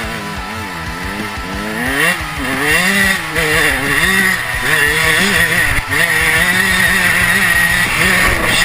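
Dirt bike engine revving up and easing off again and again as the rider accelerates over rough ground, getting louder about two seconds in.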